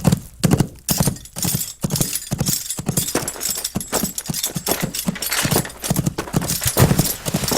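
Horse hoofbeats: a fast run of clip-clopping hoof strikes, spaced out at first and crowding together after about a second.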